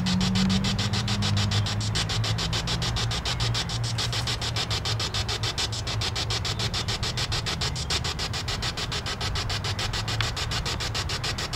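Steady static hiss, pulsing evenly about four to five times a second over a low hum.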